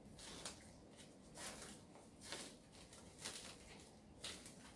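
Faint crinkling of a plastic-wrapped bread tray being handled: short, irregular rustles.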